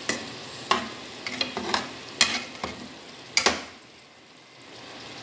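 Metal tongs stirring sliced mushrooms in a frying pan, clinking and scraping irregularly against the pan over the steady sizzle of the simmering pan juices. The stirring stops about three and a half seconds in, leaving the sizzle.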